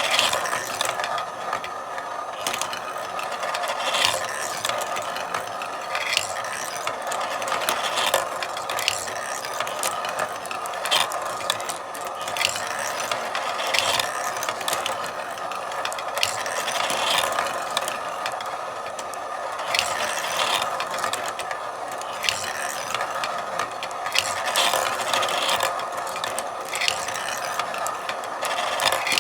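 Marble run in operation: a continuous rolling rattle of marbles on the tracks, with frequent, irregular sharp clicks and clacks as they drop and knock against the parts.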